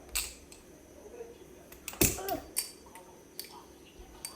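Balisong (butterfly knife) being flipped: a run of separate sharp metal clicks and clacks as the handles swing and snap against the blade and each other, the loudest about two seconds in, followed by a brief ring.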